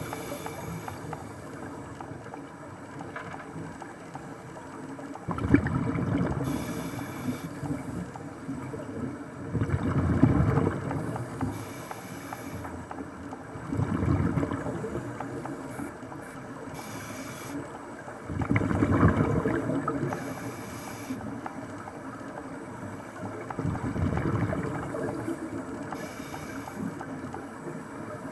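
Underwater sound of a scuba diver breathing through a regulator: five bursts of rumbling exhaled bubbles about every four to five seconds, with short hisses between them.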